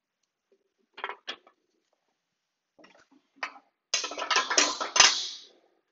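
A red plastic zero-clearance table insert being lifted out of a Shopsmith Mark V saw table: a few light clicks, then about a second and a half of plastic clattering and rattling against the metal table near the end.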